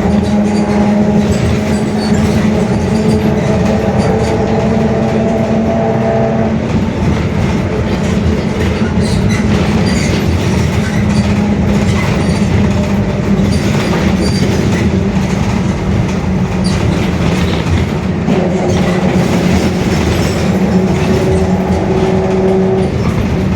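Mercedes-Benz OF-1721 bus under way: steady engine and ride noise with rattling, over which a droning whine from the differential sets in for the first six seconds and again for about five seconds near the end. The differential drone is the sign of a noisy, worn differential.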